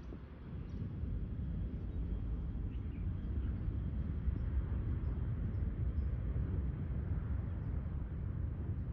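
Steady low outdoor rumble, with faint brief high chirps scattered through it.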